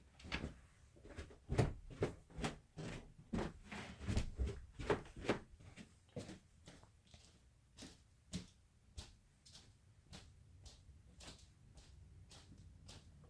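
Footsteps going down a flight of stairs and on across a floor: a run of irregular thumps, heaviest in the first five seconds, then lighter and sparser.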